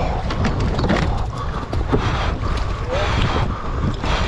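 Wind buffeting the microphone aboard a boat at sea: a steady, loud, churning rumble with the hiss of wind and water over it.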